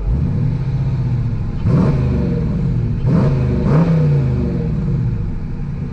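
Dodge Challenger R/T's Hemi V8 with a muffler delete, heard from inside the cabin. It idles with a deep rumble and is revved quickly three times, about two, three and four seconds in, the pitch rising sharply and falling back each time.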